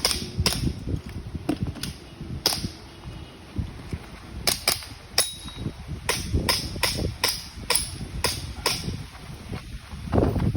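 Gas blowback airsoft pistol firing a string of about fifteen shots, sharp cracks: a few spaced shots at first, then from about four and a half seconds in a quick run of about three shots a second until near the end.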